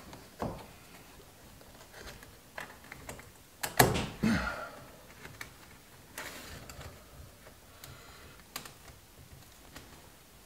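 Scattered light clicks and knocks from a cloth headliner being handled and worked into place against the roof bows, the loudest a sharp knock about four seconds in, with a short rustle of the fabric a couple of seconds later.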